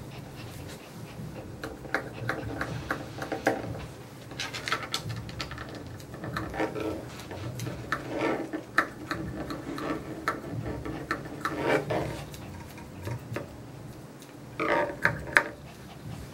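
Grooming shears snipping a dog's coat in short runs of quick clicks, the loudest run near the end.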